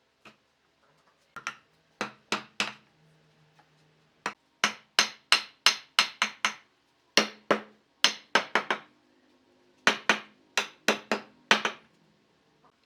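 Hammer striking wood in quick runs of several blows, about three a second, with short pauses between the runs and a short low ring after each blow.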